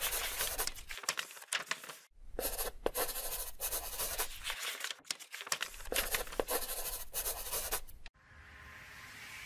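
Crackling, scratchy noise effect in bursts of a few seconds with short dropouts between them, then a rising whoosh near the end.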